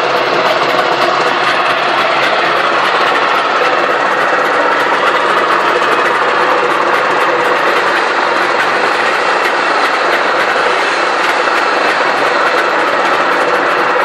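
Trabant P601's two-cylinder two-stroke engine running steadily and loudly without a break, recorded because the owner says the car at times makes strange noises.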